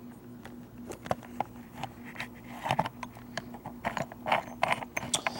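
Camera handling noise: cloth rustling against the camera, with scattered small clicks and scrapes, over a faint steady low hum.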